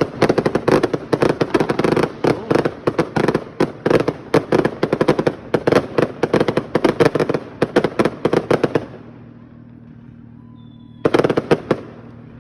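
Fireworks display going off in a rapid barrage of bangs and pops, several a second, for about nine seconds, then stopping, with a short burst of pops near the end.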